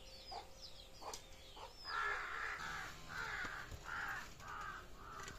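A bird calling: about five harsh calls in a row, a little over half a second apart, starting about two seconds in, after a few thin high chirps.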